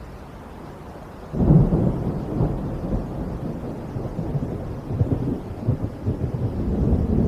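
Storm noise in sudden strong wind and rain: a deep rumble sets in abruptly about a second in and goes on in uneven surges.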